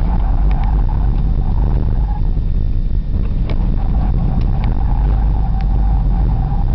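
Mitsubishi 3000GT VR-4's twin-turbo V6 heard from inside the cabin while driven hard through an autocross course: a loud, steady low rumble with a faint held whine over it and a few sharp ticks.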